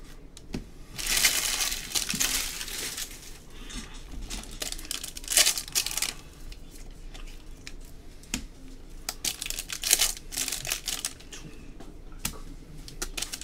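Foil baseball card pack wrappers crinkling and tearing as packs are ripped open by hand, in irregular bursts with small clicks; the loudest bursts come about a second in, near the middle and about ten seconds in.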